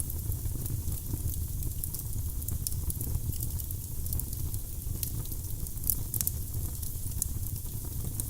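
Wood fire burning in a fireplace: a steady low rumble of the flames with frequent small crackles and pops from the logs.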